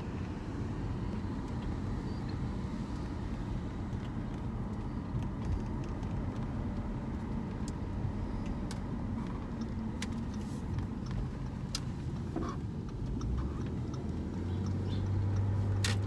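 Car cabin noise while driving slowly: a steady low rumble of engine and tyres, with a few faint irregular clicks. A low steady hum comes in and grows louder near the end.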